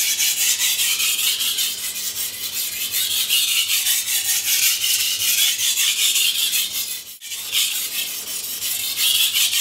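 Chef's knife blade stroked back and forth on a wet 400-grit Japanese water stone: a steady, gritty scraping made of quick repeated strokes, with a brief pause about seven seconds in. This is the second side of the edge being ground after a burr has been raised on the first.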